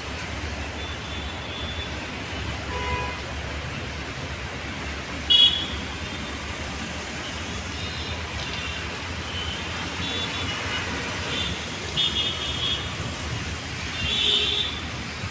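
Steady road traffic rumble with several short vehicle horn toots, the loudest about five seconds in and more near the end.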